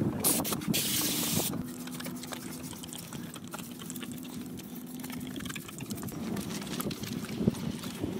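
Garden hose spraying water over an engine bay, cutting off about a second and a half in; after it, quieter short squirts of a trigger spray bottle of Simple Green cleaner.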